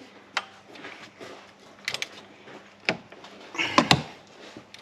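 Scattered clicks and knocks of metal parts and tools being handled, the loudest cluster a little under four seconds in.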